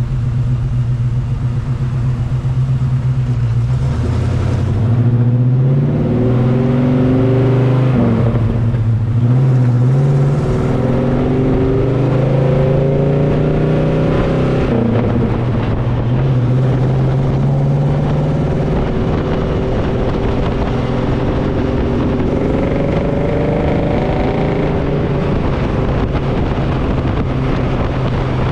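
1980 Chevy K20's 350 small-block V8 running through Summit Racing headers and Borla Pro XS mufflers in a true dual exhaust, heard from under the truck. It idles at first, then pulls away, rising in pitch and dropping back at each of several gear changes, then holds a steady cruise.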